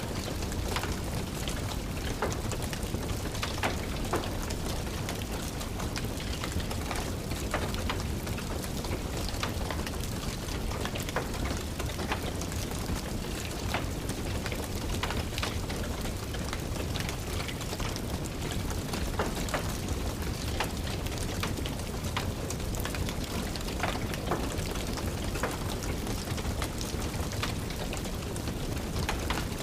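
Steady rain with a low rumble, mixed with the scattered sharp crackles and pops of a burning wood fire in a fireplace.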